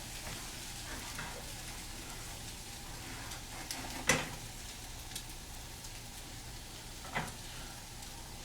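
Eggs and ham frying in a pan over a low flame, with a steady soft sizzle. Two short sharp knocks cut in, the louder one about four seconds in and another a little after seven seconds.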